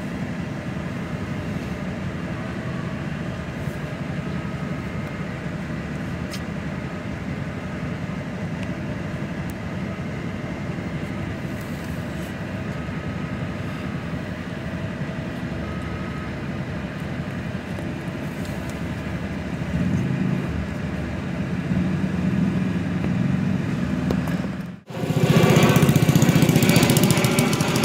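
Steady idling of motorcycle and car engines queued in traffic, heard from inside a car. About 25 seconds in it breaks off abruptly, and a louder rushing noise follows.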